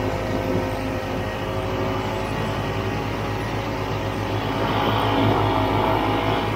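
Snowmobile engine running steadily while riding across a snow-covered frozen lake, heard from on board, rising somewhat about five seconds in as the sled leans into a turn.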